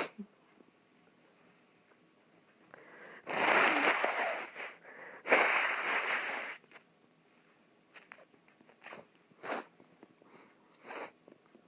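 A person blowing a congested, snotty nose: two long blows about a second apart, followed by a few short sniffs.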